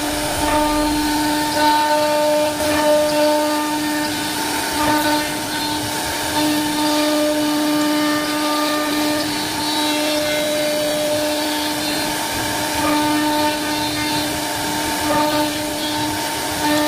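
CNC router spindle running steadily at one high pitch while its bit cuts grooves into a wooden board, with the hiss of the cut underneath.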